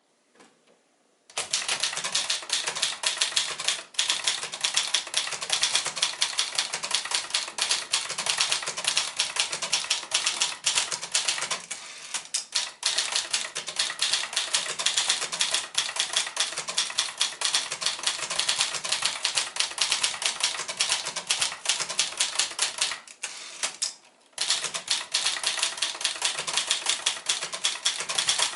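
1964 Signature 300 (Brother JP-1) manual portable typewriter being typed on quickly: a dense, fast run of key strikes that starts after about a second and a half and goes on with only a few short breaks.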